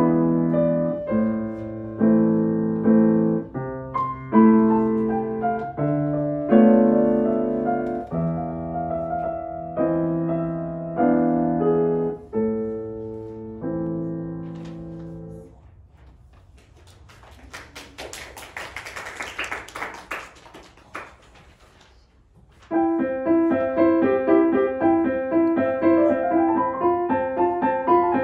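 Solo playing on a Shigeru Kawai grand piano: a phrase that ends on a held note and fades out. This is followed by a few seconds of scattered clapping. About two-thirds of the way in, the piano starts a new, quicker passage of repeated notes in a higher register.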